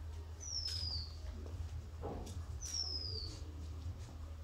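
A bird calling twice: each call a single thin, high whistle that slides down in pitch, about two seconds apart, over a steady low hum.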